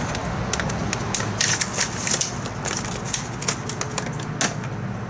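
Irregular clicks and crinkling of plastic as a tube of RTV silicone sealant is unpacked and its cap and nozzle handled, with a steady low hum underneath.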